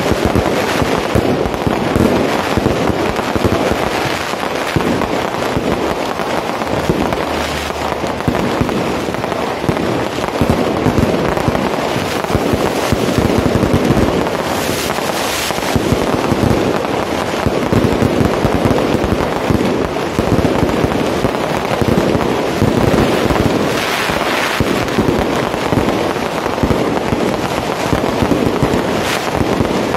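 Fireworks barrage going off without a break: a dense, unbroken crackle of bursts and bangs, with a few louder bangs about halfway through and near the end.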